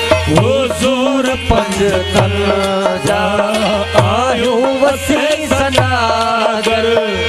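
Live Sindhi folk music: a harmonium and a lead melody with sliding ornaments over a steady hand-drum beat and low drone.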